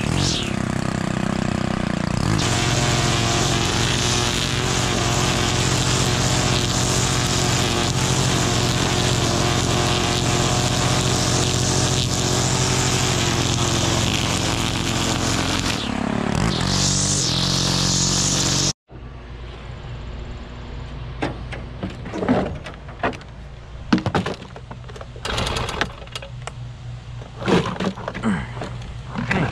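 Stihl KombiSystem gas trimmer engine running steadily under load while trimming, cutting off abruptly a little over halfway through. After that come a series of knocks and clunks from handling equipment.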